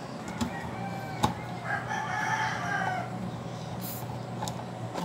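A rooster crows once, a pitched call of about a second and a half near the middle. Light clicks come from a screwdriver working on the electric fan's plastic rear motor cover.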